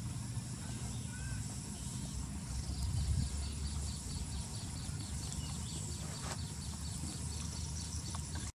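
Outdoor ambience: insects buzzing steadily, with a regular high chirping of about four chirps a second starting a couple of seconds in, over a low rumble. It all cuts off suddenly near the end.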